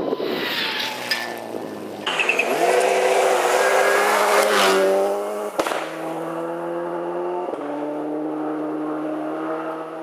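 Rally car on a gravel special stage. Gravel spray and engine noise come first; about two seconds in, the engine note climbs and holds at high revs. A sharp click and a short drop come a little past halfway, and then the engine note runs on steadily.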